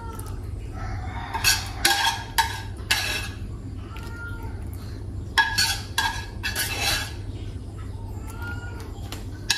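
Metal spoon scraping and clinking against a dish as sauce is spooned over a plate of boiled eggplant: short strokes in two bunches, one in the first few seconds and one near the middle.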